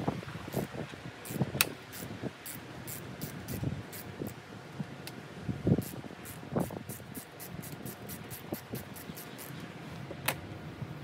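Hand tools at work on the bolts of a truck's stock stainless sun visor: scattered knocks and light metallic clicks, with a run of faint quick ticks through the middle.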